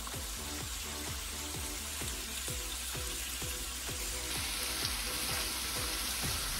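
Background music with a steady beat over the sizzle of bacon strips frying on a hot griddle plate. The sizzle grows louder about four seconds in.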